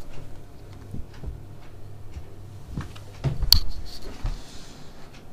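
Handling noise as a hand-held camera is moved about: low rubbing and rumbling with a few knocks, and a cluster of thumps ending in a sharp click about three and a half seconds in.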